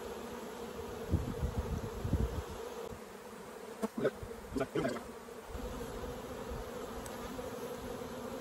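Honeybees buzzing in a steady drone around an opened hive; the speaker calls them feisty and not happy, flying around. A few short clicks and knocks come about four and five seconds in as wooden frames are handled.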